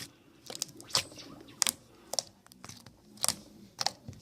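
Sticky white marshmallow slime being squished and poked by hand, giving a string of sharp wet pops and clicks, about two a second.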